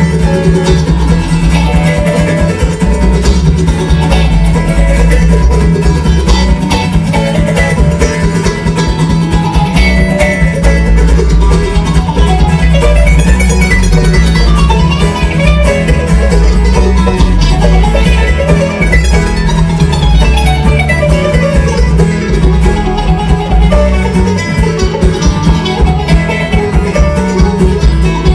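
Bluegrass band playing live: mandolin, acoustic guitar and five-string banjo picking over a plucked upright bass.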